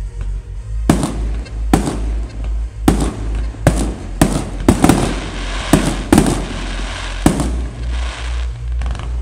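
Fireworks going off in a series of sharp bangs, roughly one a second, with crackling between bursts in the middle stretch. Music with a heavy bass plays underneath throughout.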